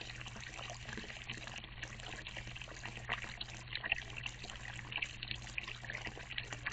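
Water trickling and splashing at a small wildlife watering hole, a continuous crackly patter with many small irregular clicks, over a steady low hum.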